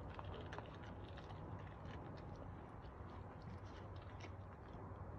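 A Doberman chewing a raw skinned squirrel: scattered small wet clicks of teeth on the meat. The clicks thin out after a couple of seconds, over a steady low hum.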